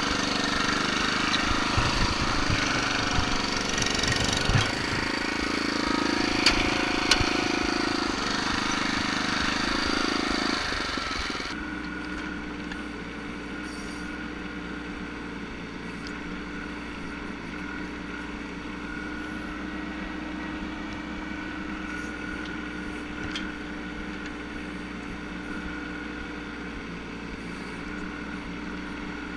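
A Canycom BFP602 tracked dumper's engine running hard with a few sharp knocks and rattles as it travels. About eleven seconds in it gives way to the Bobcat 418 mini excavator's engine running steadily, quieter, heard from the operator's seat.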